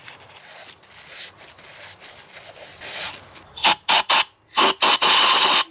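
Clutch slave cylinder parts being cleaned by hand. Soft rubbing comes first, then a few short, loud rasping noises about three and a half seconds in, and one longer one of about a second that stops abruptly near the end.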